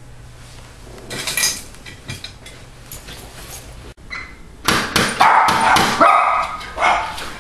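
Dog barking several times in quick succession, starting a little past the middle.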